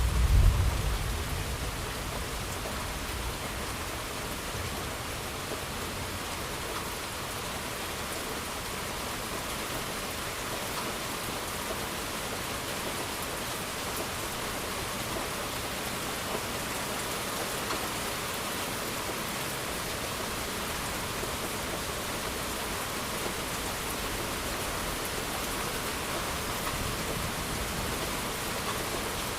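Steady rain pattering down, with a low rumble of thunder at the start that dies away within about a second and a half.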